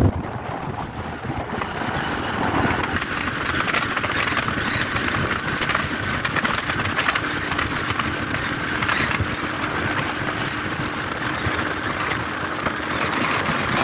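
Motorcycle running at a steady cruising speed on a paved road: a steady engine hum under a hiss of wind and road noise.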